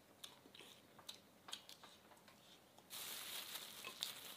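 Faint scattered clicks of chopsticks and eating, then about three seconds in a plastic bag starts to crinkle and rustle as it is handled.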